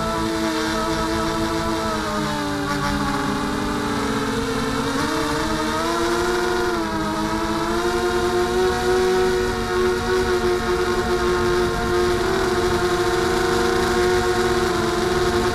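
Mini FPV quadcopter's brushless motors and propellers whining, heard from on board. The pitch sags a couple of seconds in, climbs back around the middle as the throttle changes, then holds steady.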